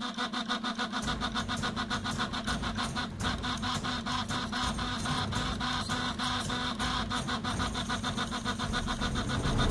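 RepRap-style 3D printer running, its stepper motors buzzing in quick, stuttering moves many times a second as it prints PLA honeycomb infill, over a steady hum.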